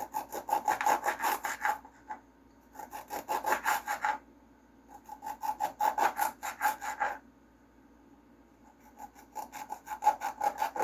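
Kitchen knife cutting fresh ginger root on a cutting board: rapid rasping strokes in four bursts, each a second or two long, with short pauses between.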